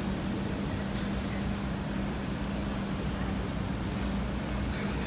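Steady drone of a Sydney ferry's engine, a constant low hum over a wash of background noise, with a brief hiss near the end.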